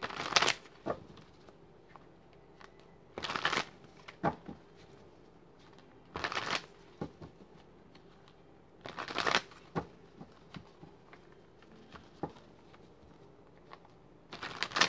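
A tarot deck being shuffled by hand: five short bursts of shuffling a few seconds apart, with small taps and clicks of the cards in between.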